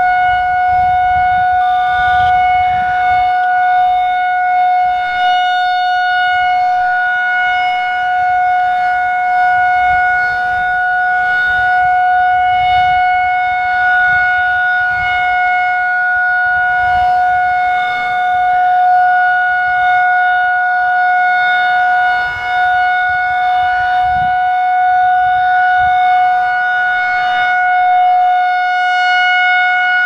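Federal Signal 2001-SRNB outdoor warning siren sounding its steady alert tone for a monthly test. It holds one unchanging pitch with a strong overtone an octave above.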